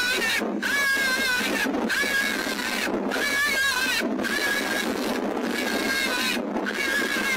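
Electronic predator call playing a high, wavering animal distress cry, repeating in phrases about a second long with brief breaks between, over a steady hiss.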